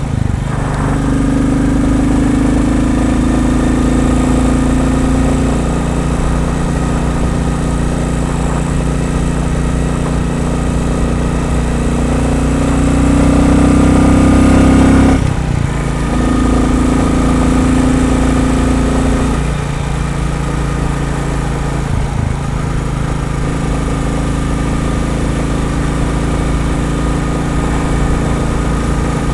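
Royal Enfield Bullet 350's single-cylinder engine running under load on the road, its pitch shifting a few times, with a sudden break about halfway through. The owner hears a wooden rattle or buzz in time with the firing strokes at certain revs, which owners take to be normal for a new Bullet that will soften as the engine runs in.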